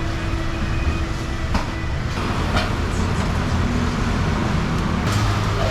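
Steady low rumbling background noise, like street traffic or machinery, with a few short clinks.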